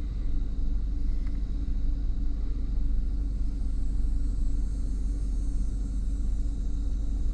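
Chevrolet Silverado 1500's 4.8-litre V8 idling steadily during a cylinder balance test, with its injectors being shut off one at a time from a scan tool to find a misfiring cylinder.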